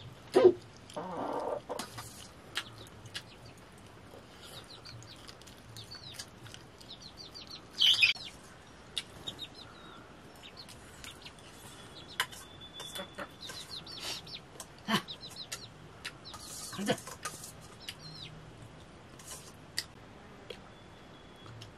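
Chickens clucking now and then, one short loud call about eight seconds in, among scattered sharp clinks of spoons on metal plates.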